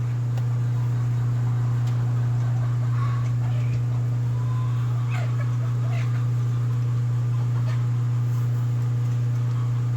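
A steady low hum from a running motor, with a few faint short clicks over it.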